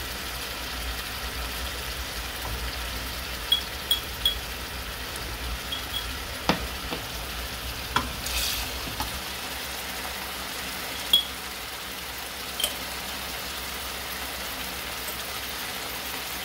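Sliced onions and whole spices sizzling steadily in hot oil in a large pot, with a few short, sharp taps and clinks of utensils against the pot scattered throughout.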